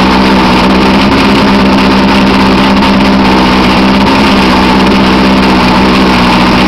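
Outboard motor running steadily on the trailer with its cowling off, the powerhead exposed; the pitch holds even with no revving.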